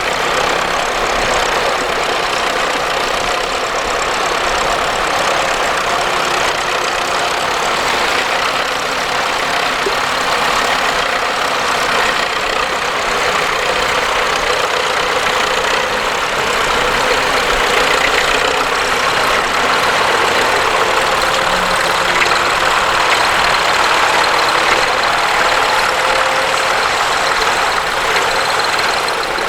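Tractor engine running steadily, with no revving or change in speed.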